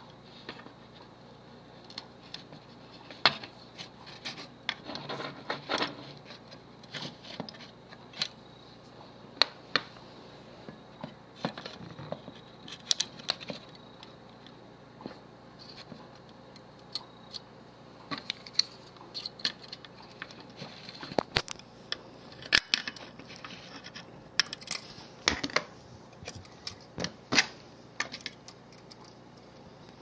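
Small parts and hand tools being handled on a workbench: irregular sharp clicks and taps, with short stretches of scraping about five seconds in and again near the end.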